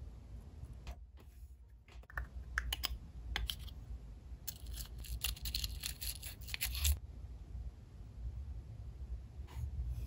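Metal tweezers making light scattered clicks, then a dense couple of seconds of scraping and rattling around the middle as they rummage through small metal trinkets inside a hollow walnut shell.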